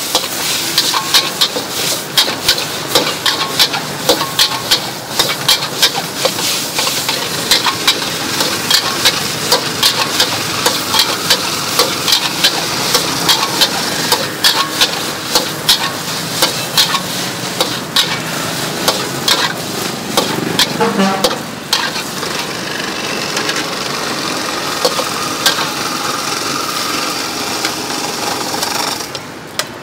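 Metal ladle clanking and scraping against a wok as flat noodles and egg are stir-fried, with steady sizzling. The clanks come quickly, about two or three a second, and thin out after about twenty seconds, leaving mostly the sizzle.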